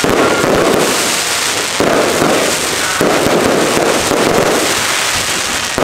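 Aerial fireworks going off in quick succession, a loud, dense run of bangs, pops and crackling, with fresh volleys starting just before two seconds in and again at about three seconds.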